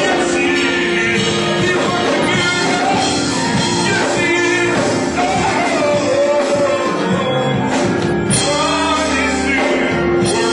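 A band playing an upbeat worship song with a singer, loud and without pause.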